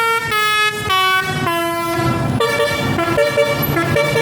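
Indonesian bus 'telolet' multi-tone musical horn playing a melody: a run of loud notes stepping down in pitch, then fainter, shorter repeated notes from about two seconds in.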